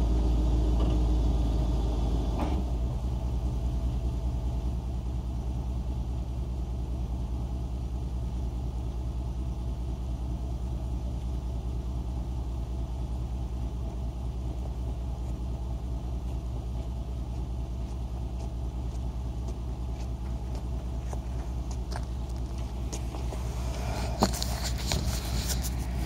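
Vehicle engine idling steadily with a low hum. It runs a little louder for the first couple of seconds, then settles. A single sharp knock and some handling noise come near the end.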